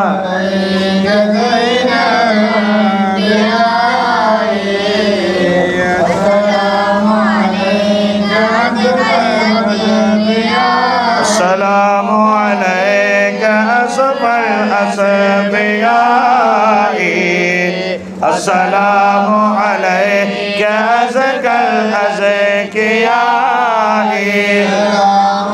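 Men's voices chanting Arabic mawlid verses through a microphone, in long melodic phrases that rise and fall, with a steady low hum underneath.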